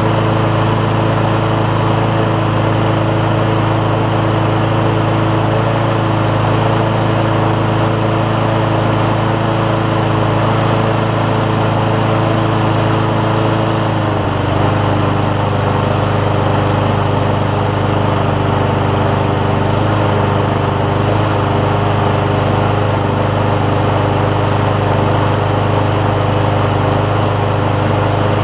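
Toro Super Recycler push mower's small single-cylinder engine running steadily after a new ignition coil and a carburettor clean. Its speed drops slightly about halfway through.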